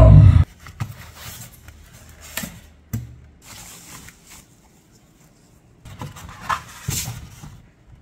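Loud film dialogue and soundtrack cut off suddenly about half a second in. After it come faint, scattered rustles and light knocks of a soundbar being handled in its foam packaging and plastic wrap, a little louder around the sixth and seventh seconds.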